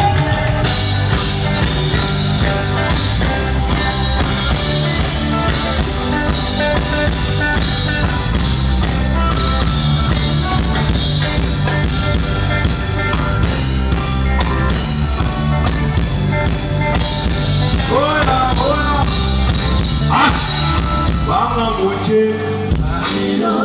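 Band music with a steady beat, strong bass and a drum kit, with no vocals for most of it; a singing voice comes in near the end.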